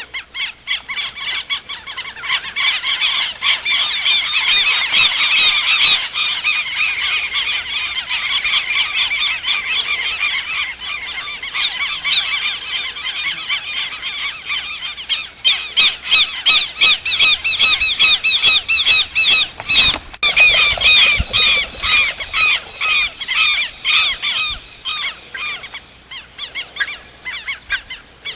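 A flock of birds calling loudly: many overlapping honking, high-pitched calls, becoming a quick run of separate calls, a few a second, in the second half before thinning out near the end.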